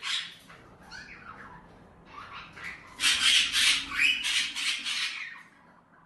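Pet cockatiels calling: a short harsh call at the start and scattered chirps, then a loud run of harsh calls, about four a second, for roughly two seconds from about halfway through.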